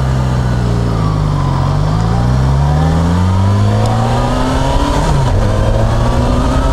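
Yamaha FZ6R's inline-four engine accelerating: its pitch climbs steadily for several seconds, drops sharply at an upshift about five seconds in, then climbs again.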